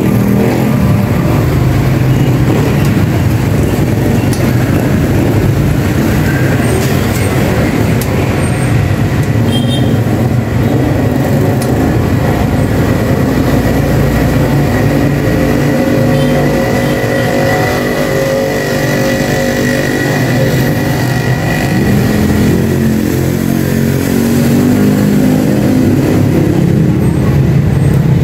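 A vehicle engine running steadily, its pitch shifting up and down for a while in the middle.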